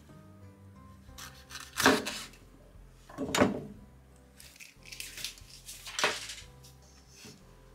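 Kitchen knife cutting green peppers on a wooden cutting board: a few separate sharp knocks of blade and pepper pieces against the board, the two loudest about two seconds in and a second and a half later, with lighter knocks near the end. Faint background music runs underneath.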